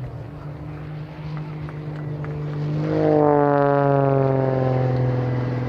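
Extra EA-330SC aerobatic plane's piston engine and three-blade propeller passing close, growing louder and then dropping steadily in pitch about three seconds in as it goes by.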